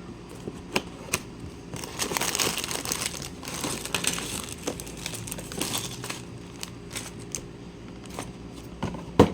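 Plastic LEGO parts bags crinkling as they are handled, with scattered small clicks and one sharp knock near the end.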